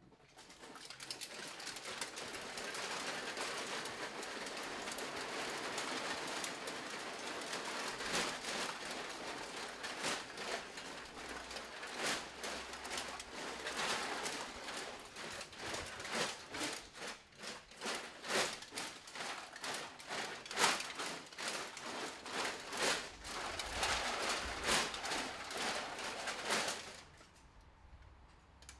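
Masses of empty aluminium drink cans rattling and clinking against each other in a dense, crackling clatter, with sharper separate clanks from about ten seconds in; it stops suddenly near the end.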